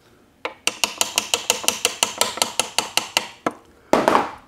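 A hammer tapping rapidly on the steel gear train of a T5 five-speed transmission, about six light metallic, ringing taps a second, seating the just-fitted fifth speed gear. A louder metal clatter follows near the end.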